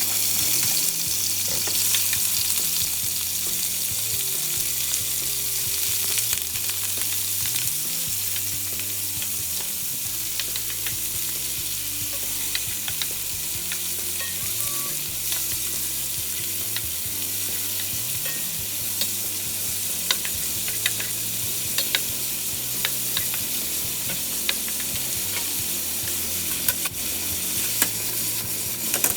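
Food sizzling steadily in hot oil in a frying pan while being stirred, with scattered clicks and scrapes of the utensil against the pan.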